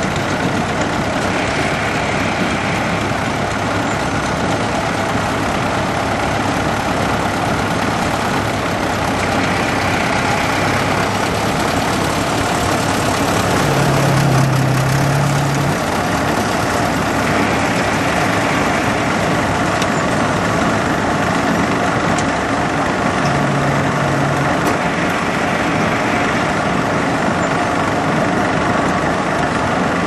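Crawler bulldozer's diesel engine running steadily, with a deeper hum that swells briefly twice, about halfway and about three-quarters through.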